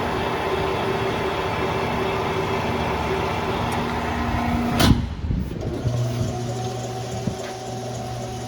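Aronson welding positioner's electric tilt drive running with a steady motor-and-gearbox hum, stopping with a sharp clunk about five seconds in. About a second later a lower, steady motor hum starts.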